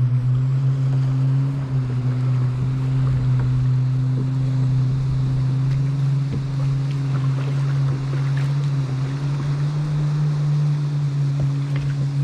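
A kayak moving over open water, with water lapping at the hull, under a steady low hum that shifts pitch slightly a couple of times.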